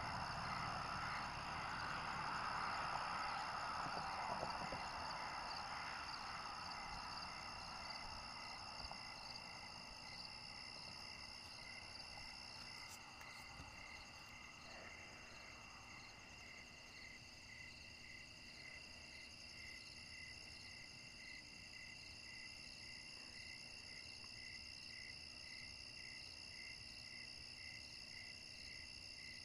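A night chorus of crickets and other insects: several steady high chirring tones, one of them pulsing in an even rhythm. A broad rushing noise fades away over the first ten seconds or so.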